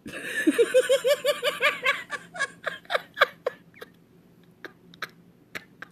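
A woman laughing: a quick run of giggles that slows into separate breathy chuckles and trails off about halfway through.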